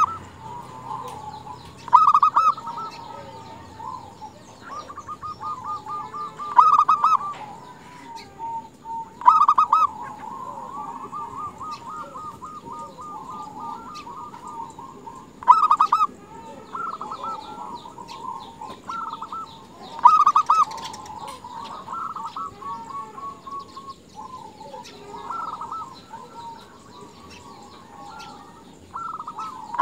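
Female zebra dove (perkutut) calling: rapid strings of short trilled coos at one pitch, with louder bursts every few seconds and softer trilling between. It is the kind of call kept to lure male perkutut into calling.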